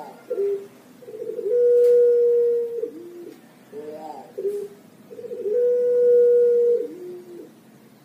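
Puter pelung, a Javanese variety of Barbary (ringneck) dove bred for its long coo, cooing twice. In each coo a fluttering start leads into a long held note of just over a second, which ends in a short lower note.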